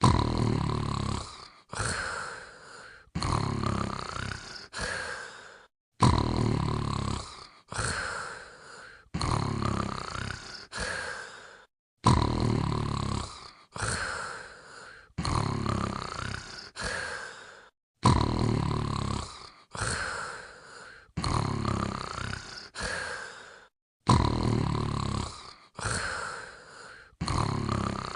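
Dog snoring in its sleep: a run of snores, each starting sharply and fading away, with dead-silent gaps between them. The same group of four snores repeats about every six seconds, like a looped recording.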